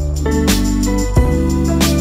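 Background music: held bass notes and a melody over a steady drum beat.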